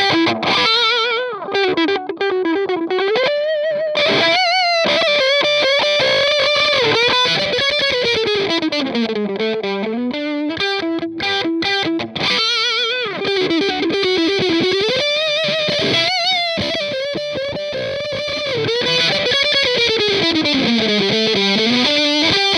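Electric guitar played through a Boss DS-2 Turbo Distortion pedal: a single-note distorted lead melody with slides and vibrato. The same phrase is played twice.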